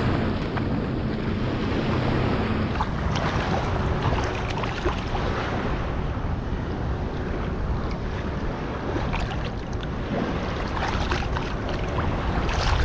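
Wind buffeting the microphone over small waves washing on the shore, with light splashing from wading in shallow water.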